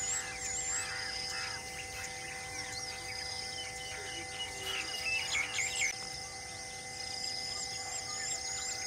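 Forest birds chirping and calling in many short overlapping notes, with a quick run of repeated high notes near the end, over a steady even hum.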